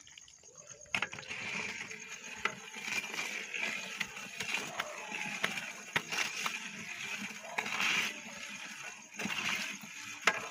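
Long metal ladle stirring hot sugar syrup and oil in a large metal cooking pot. The liquid sloshes and swirls, with scattered clicks of the ladle against the pot, starting about a second in.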